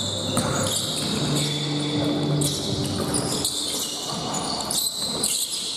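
Indoor court game in a gym hall: a ball bouncing on the floor in repeated knocks, with many short high squeaks of shoes on the court. Voices sound faintly in the hall.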